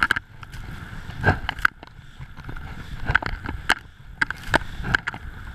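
Skis sliding and turning through deep powder snow, a series of irregular swishes and knocks, with wind rumbling on the microphone.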